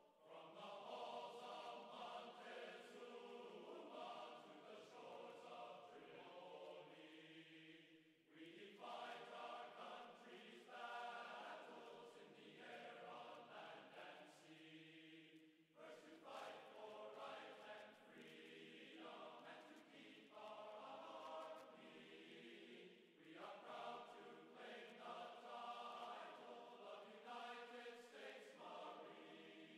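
Faint background music of choral chanting in long sung phrases, broken by short pauses about every seven or eight seconds.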